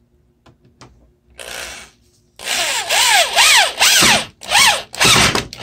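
Corded electric drill driving a screw into a wooden board: one short spin, then a string of quick trigger pulses, the motor whine rising and falling with each pulse as the screw goes in.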